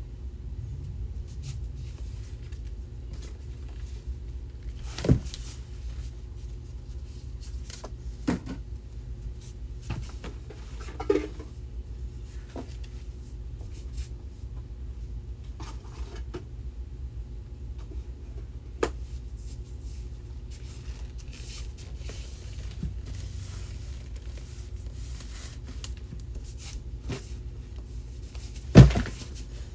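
Drawers being opened and closed and things being handled: a few separate knocks and clicks, the loudest near the end, over a steady low hum.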